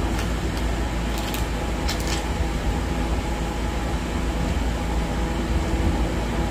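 Steady low hum of electric fans running, with a couple of faint brief rustles about one and a half and two seconds in.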